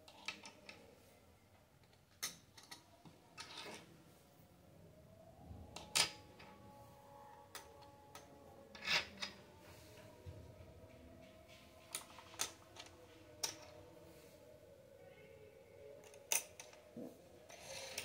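Small plastic toy forks and spoons clicking and tapping as they are set down on plastic toy plates: about a dozen light, irregular clicks.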